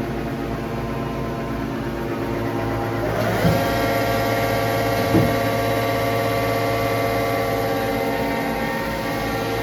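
Mori Seiki Dura Turn CNC lathe running with a steady, many-toned machine hum. About three seconds in, the hum shifts to a new, higher set of tones, with two short knocks soon after.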